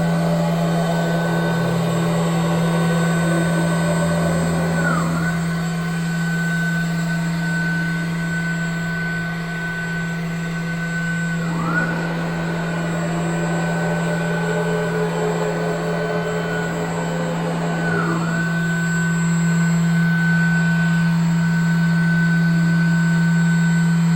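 REU1212 CNC router running a milling job: a steady low spindle hum under a high whine with rough cutting noise. The whine dips briefly and comes back about every six and a half seconds, as the machine changes pass.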